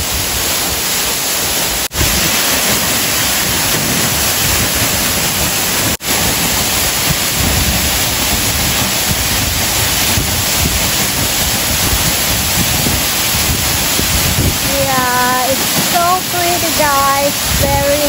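Waterfall: a loud, steady rush of falling water, dropping out for an instant twice, about two and six seconds in.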